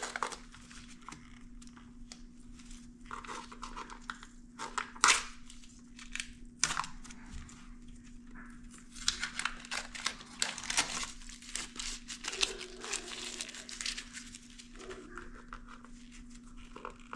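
Irregular crinkling and rustling with scattered light clicks, from gloved hands handling parts and wrappings during motorcycle throttle-body reassembly. A faint steady hum runs underneath.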